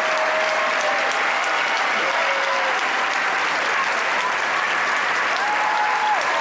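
Theatre audience applauding steadily, with a few cheering voices calling out over the clapping.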